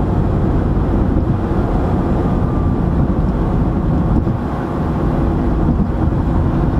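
Steady cabin noise of a car cruising at highway speed: a constant low road rumble heard from inside the car.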